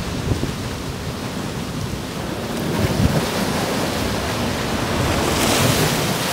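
Sea waves washing onto the shore, a hiss of surf swelling about five seconds in, with wind rumbling on the microphone.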